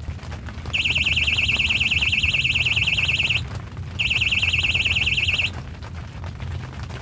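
Electronic fishing bite alarm sounding a high, rapidly warbling beep in two bursts: a longer one of about two and a half seconds, then after a short gap one of about a second and a half. This is the signal of a fish pulling on the line. A low, steady rumble runs underneath.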